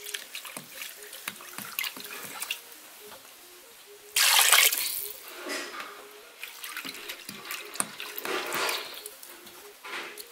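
Water being poured into a metal pot of cooking liver stew, splashing in a loud gush about four seconds in, with smaller splashes before and after and another pour starting at the very end.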